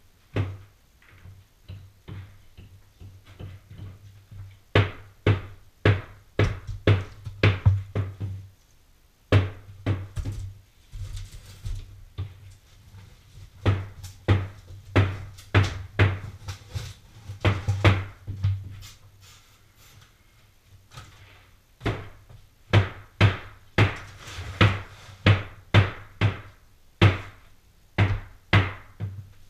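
Background music with a beat: sharp drum hits over a deep, repeating bass.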